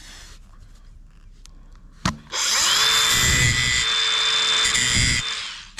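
Cordless DeWalt angle grinder clicks, spins up about two seconds in and runs with a steady high whine while its disc grinds down the stripped head of a steel track screw. It winds down shortly before a second click at the end.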